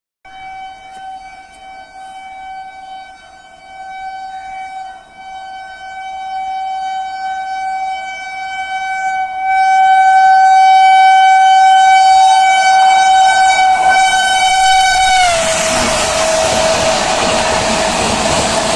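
An Indian Railways express locomotive's horn sounds one long unbroken blast as the train approaches at high speed, growing steadily louder. About fifteen seconds in, the horn's pitch drops as the locomotive passes, and the loud rushing rumble of the coaches going by at speed takes over.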